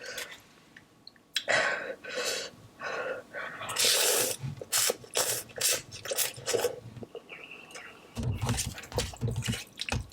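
Spicy noodles being slurped and chewed, in a string of short wet slurps.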